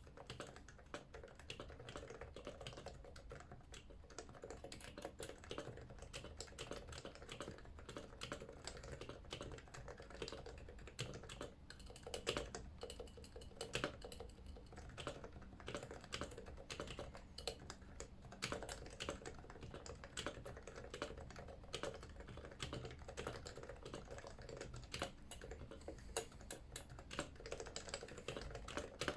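Continuous fast typing on a Yui660c keyboard with stock 45 g Topre switches and stock keycaps: a dense, unbroken run of key strikes, with a couple of louder hits around the middle.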